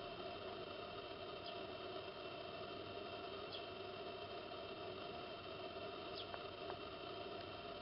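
Faint steady background hum with a few faint, short bird chirps spaced a couple of seconds apart, and a couple of small ticks near the end.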